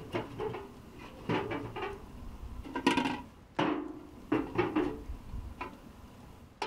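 Metal cooking pots and utensils clattering and knocking, about eight separate knocks, some ringing briefly, with the loudest clatter about three seconds in.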